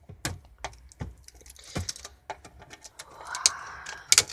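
Hard plastic clicking and tapping as a clear plastic model display case is handled and opened by hand, with a scraping rub about three seconds in and a couple of sharper clacks near the end.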